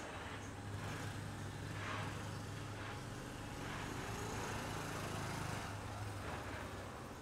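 Small outboard motor of a moat tour boat running steadily at low speed, a low drone.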